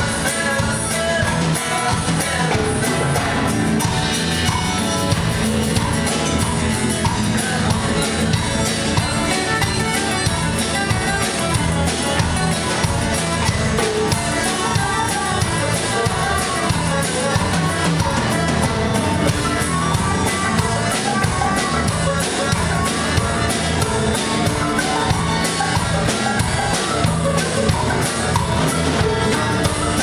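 Live band playing a steady number on acoustic guitars, electric bass and congas.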